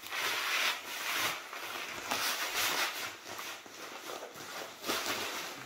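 Plastic bag crinkling and rustling in irregular surges as a mix of ammonium nitrate and fine aluminum powder inside is shaken and kneaded by hand to coat it evenly.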